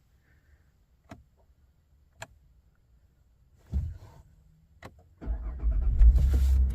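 A few sharp clicks and a low thump, then a Holden VF Commodore's engine starts about five seconds in and runs on with a steady low rumble.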